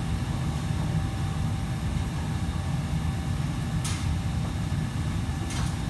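Steady low rumble of a busy commercial kitchen's fans and burners, with two brief clatters, one about four seconds in and one near the end.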